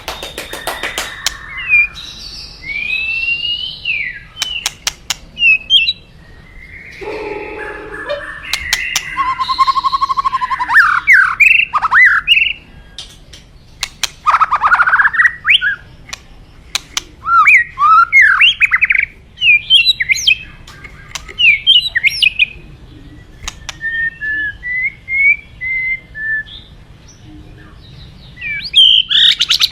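White-rumped shama (murai batu) singing a long, varied song: loud sliding whistles mixed with harsh rasping notes and sharp clicks, in phrases separated by short pauses.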